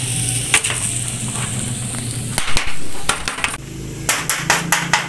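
Kitchen utensils and metal trays being handled on a table: scattered clicks and knocks, one louder knock about halfway through, then a quick run of evenly spaced clicks near the end, over a steady low hum.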